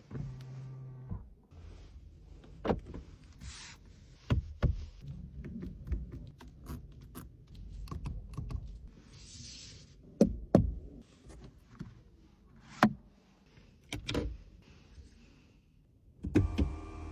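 Small electric motors in the cabin of a BMW i5 M60 run in short spells, as power windows do, among a dozen or so sharp clicks and knocks from switches and trim. There is a brief hiss about halfway through, and a louder hum starts near the end.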